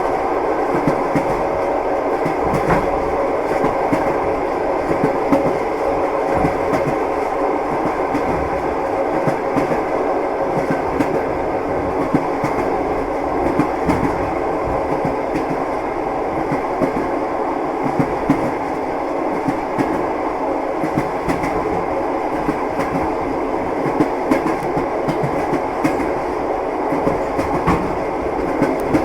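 Train wheels clattering on the rails: a steady rumble with repeated sharp clicks, clickety-clack, coming every second or so.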